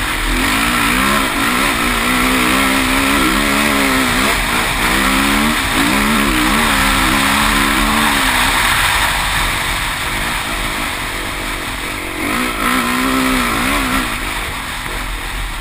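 Honda CRF450 motocross bike's four-stroke single-cylinder engine revving hard, its pitch climbing and dropping with the throttle and gear changes, under heavy wind rush on the microphone. The engine note falls back for a few seconds past the middle, then picks up again near the end.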